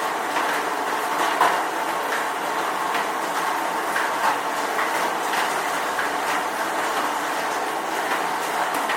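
Steady rain, with many irregular drops tapping on a hard surface.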